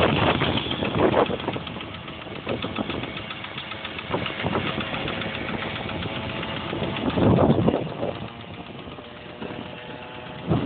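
Small motorcycle engine running at steady revs while riding, with wind rushing over the microphone, louder at the start and again about seven seconds in.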